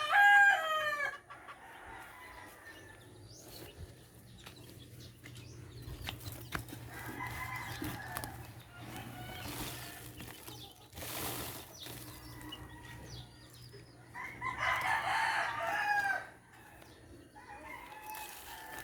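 Roosters crowing: the tail of one crow with falling notes ends about a second in, and another loud crow of about two seconds comes near the end, with fainter calls between.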